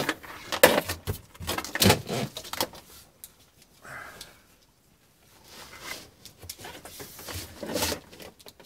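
Plastic convoluted tubing being pushed along a wiring loom behind car interior trim. It makes irregular rustling, scraping and knocking, heaviest in the first two seconds, then quieter, then rustling again near the end.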